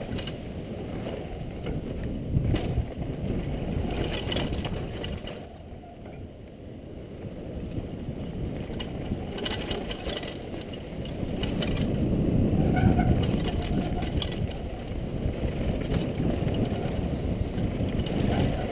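Wind rumble on a helmet-mounted camera microphone mixed with the rattle and clatter of a downhill mountain bike's tyres and frame over a rocky trail, with scattered sharp knocks. It eases off briefly about six seconds in and swells loudest around two-thirds of the way through.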